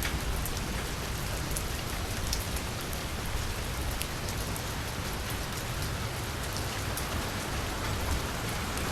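Steady rain falling on a paved street, an even hiss with scattered individual drops ticking.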